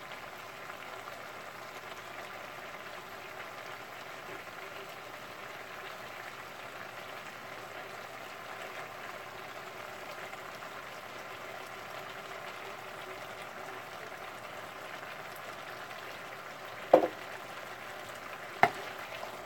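Chicken, shrimp and vegetables in a wok simmering and sizzling in freshly added kung pao sauce, a steady bubbling hiss. Two sharp knocks near the end.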